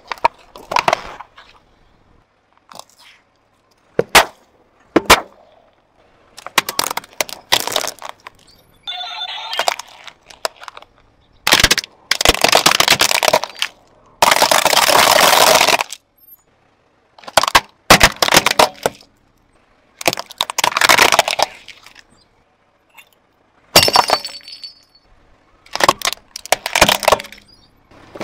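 A car tyre rolling over and crushing small objects one after another, including metal tins and plastic toy planes. It makes a run of loud cracks, crunches and snaps, some short and some drawn out over a second or two.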